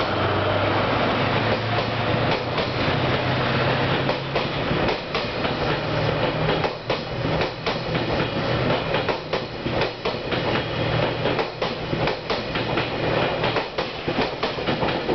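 The 77-series passenger coaches of the 'Seven Stars in Kyushu' cruise train rolling past without stopping, their wheels clattering over the rail joints in quick, irregular clicks over a low steady hum. The clicks come thicker from about five seconds in.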